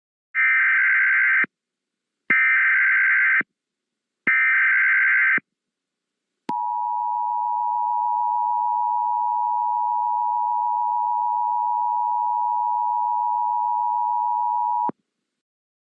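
Emergency Alert System tones starting a new alert. First come three short, buzzy data bursts of the SAME header, about two seconds apart. Then the steady two-tone EAS attention signal starts about six and a half seconds in, holds for about eight seconds, and cuts off suddenly.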